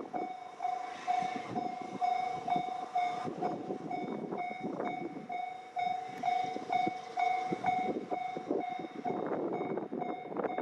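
Japanese railway level crossing's electronic warning bell ringing evenly, about two and a half strokes a second, over the rattle and clatter of a passing train.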